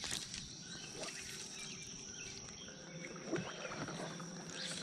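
Quiet lakeside ambience: a steady high insect buzz with scattered faint bird chirps. A few soft taps and rustles come from fly line being stripped in by hand.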